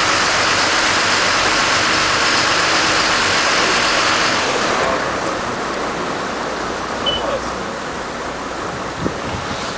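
Wind and water rushing past a RIB boat moving fast through a strong tidal current, with the steady drone of its engine underneath. The rush eases off about halfway through.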